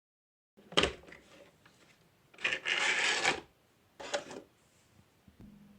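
A sharp knock, then about a second of rustling scraping, then another knock, as objects are handled and set down; a faint steady hum comes in near the end.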